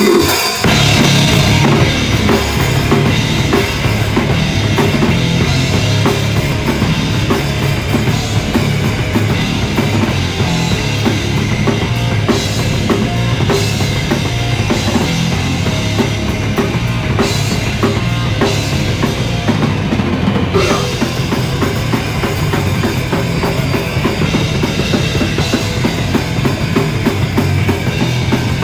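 Live rock band playing an instrumental passage at full volume, with a busy drum kit to the fore over guitar and bass, recorded on a phone.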